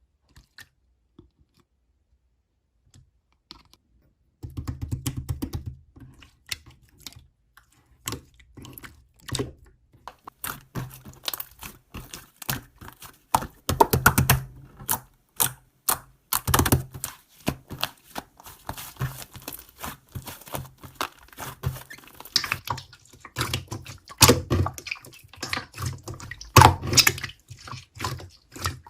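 Slime being pressed, stretched and squished by hand: dense, irregular clicking and popping with soft squelches, starting about four seconds in after near silence.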